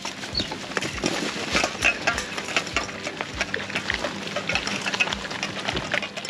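Cheetah cubs eating from steel bowls: irregular clinks and clicks of the metal bowls against teeth and muzzles as they feed, with one short high cub chirp just under half a second in.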